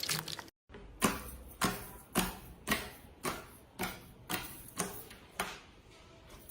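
A run of sharp, evenly spaced clicks, about two a second, fading away over about four seconds: slime clicking as it is pressed.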